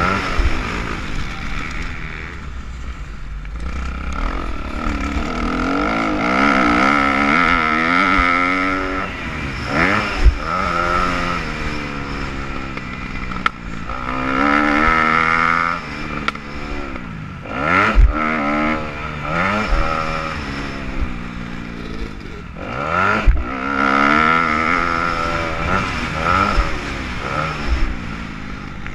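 Dirt bike engine heard from the rider's helmet, revving up and falling back again and again as the bike accelerates, shifts and rolls off around a motocross track. Three sharp thumps stand out, about ten, eighteen and twenty-three seconds in.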